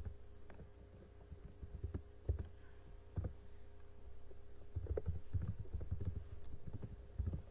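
Computer keyboard being typed on: irregular keystroke clicks with dull low thumps, coming faster from about five seconds in, over a faint steady electrical hum.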